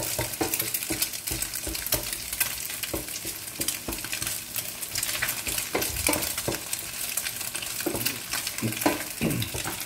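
Eggs frying in hot oil in a non-stick pan, sizzling and crackling steadily, while a wooden spatula stirs and scrapes them against the pan with many short clicking strokes.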